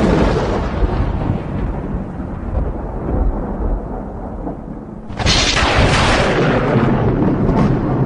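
Thunder: a loud rolling rumble fading away over the first few seconds, then a sharp new thunderclap about five seconds in that rumbles on.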